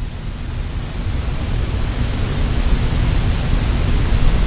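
Steady rushing noise, heaviest in the low end, that grows steadily louder, with a faint low hum under it.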